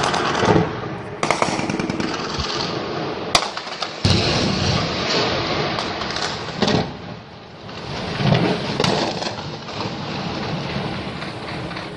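Heavy gunfire: dense, continuous crackle of automatic weapons fire with sharper, louder shots standing out every second or two. It eases off a little toward the end.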